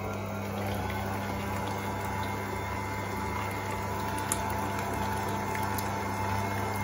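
Smeg planetary stand mixer running steadily, its wire whisk beating cream cheese, whipping cream and powdered sugar into a cream-cheese filling in a steel bowl; a constant motor hum with a faint whine. A small click about four seconds in.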